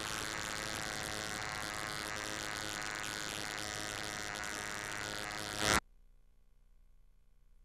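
Model airplane engine running steadily, heard from on board with air rush. About six seconds in, a brief louder burst, then the sound cuts off suddenly to near silence with a faint hum.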